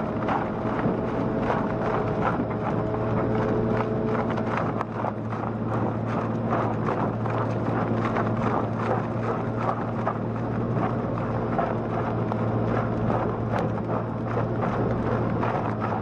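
Slow-speed twin-shaft shredder crushing a hopperful of branches and brush: a steady engine drone under dense, irregular cracking and snapping of wood. A faint whine over it stops about four seconds in.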